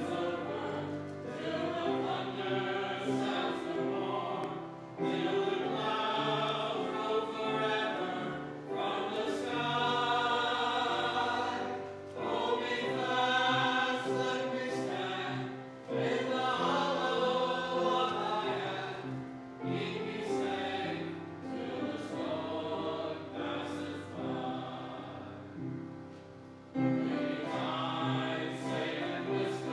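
Choir singing a hymn in long held phrases, with brief breaths between phrases.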